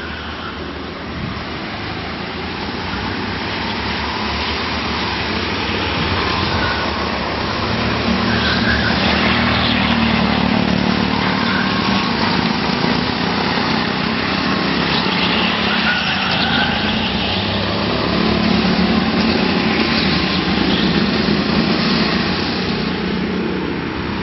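Go-kart engines running as karts lap the track, the engine noise swelling twice as they pass close.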